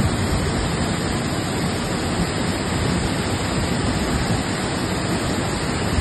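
A large waterfall in heavy flow, white water pouring down over big rocks: a steady, unbroken rush of water.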